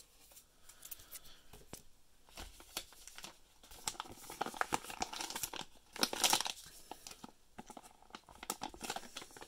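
Plastic mystery card pack pouch crinkling and crackling as it is handled, in irregular rustles with sharp crackles, loudest about six seconds in.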